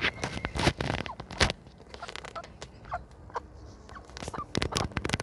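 Chickens foraging in a run: scattered short rustles and clicks, with a few brief soft clucks from the hens in the middle.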